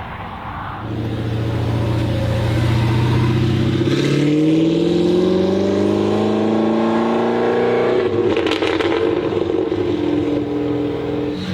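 Supercar engine accelerating, its pitch rising steadily for about four seconds. About eight seconds in the pitch drops with a brief crackle, as in an upshift, then holds a steady note.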